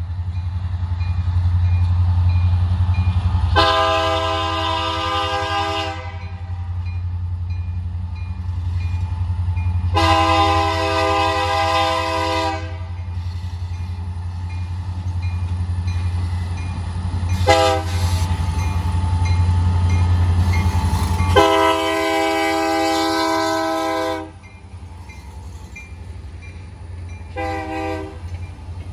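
Air horn of the diesel locomotives leading a freight train of ex-Norfolk Southern SD60Ms, blown long, long, short, long as the grade-crossing warning, then one more short toot near the end. Under the horn is the steady rumble of the diesel engines as the locomotives approach. The rumble drops off as the locomotives go by.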